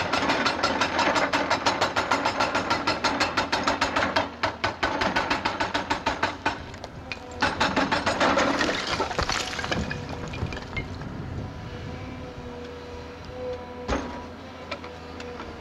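HIDROMEK crawler excavator working rock: a fast, even clattering rattle that breaks off twice and stops about nine or ten seconds in, leaving the engine running steadily, with one sharp knock near the end.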